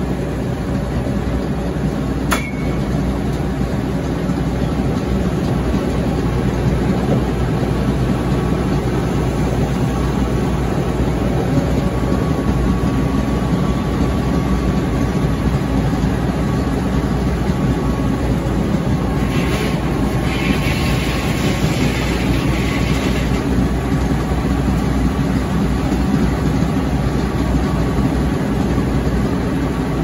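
Caterpillar engine running steadily, driving a Frick sawmill's circular head saw as it cuts a slab off a big log. A sharp click about two seconds in, and a stretch of higher hissing noise around twenty seconds in.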